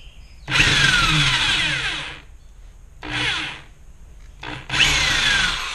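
Corded electric drill driving a square bit into a stripped Phillips-head fuel-injector screw, run in three trigger bursts: a long one of about a second and a half, a short one, then one of about a second. The motor's pitch falls away after each release. The bit is not yet biting well enough to free the stripped screw.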